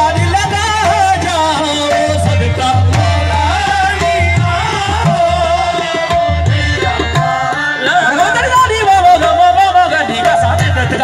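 Qawwali group singing: lead and chorus voices with harmonium accompaniment and a hand-drum beat, amplified through a PA sound system.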